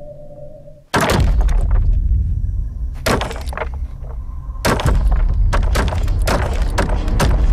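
A chained wooden door being yanked and shaken: the chain and padlock rattle against the wood with heavy thuds. It starts suddenly about a second in, and there are fresh bursts around three seconds and near five seconds.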